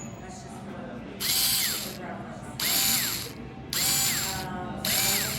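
Amazon Basics by SKIL 4V cordless stick screwdriver running in four short bursts with a gear whir. Its pitch drops as the motor winds down at the end of each burst.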